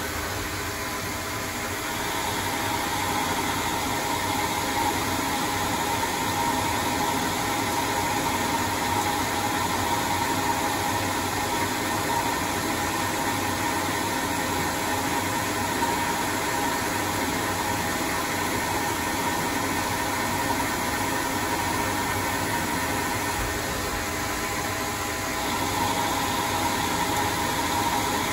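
CNC lathe running steadily with a spindle whine while an insert tool takes rough-turning passes along a metal propeller shaft. The sound steps up about two seconds in and again near the end as the cut changes.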